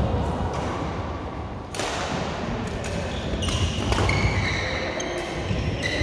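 Badminton rally in a large echoing hall: sharp strikes of rackets on the shuttlecock, about two seconds in and twice more around three and a half to four seconds, with shoes squeaking on the court floor.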